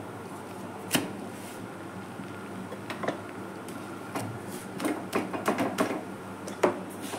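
A spatula clicking and knocking against a tawa as a paratha is pressed and turned on it: a few short sharp knocks, the loudest about a second in and near the end, with a quick cluster of lighter taps in the second half, over a steady low hum.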